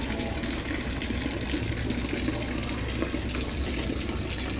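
Water running and splashing steadily, with a low steady hum underneath.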